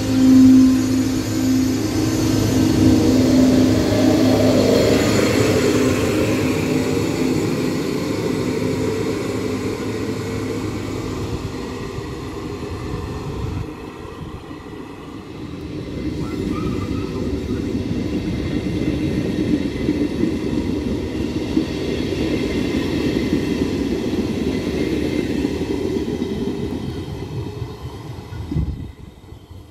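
Electric trains moving through a station: a Trenord ALe 582 electric multiple unit running close by with a steady electric hum that gives way to the rumble of its wheels and fades; then, after a quieter stretch, another train's rumble building as it approaches and passes.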